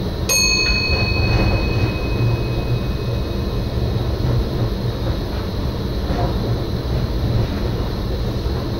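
NS SGM Sprinter electric train running along the track, a steady low rumble heard in the driver's cab. About a third of a second in, a single bell-like ding sounds and its ringing tone fades slowly over several seconds.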